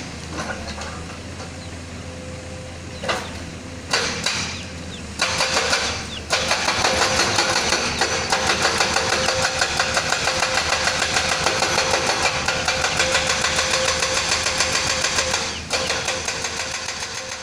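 Excavator-mounted hydraulic breaker hammering in a fast, even rhythm of repeated blows over the excavator's running diesel engine. The hammering is lighter at first and comes in much louder from about five seconds in, with a short break near six seconds.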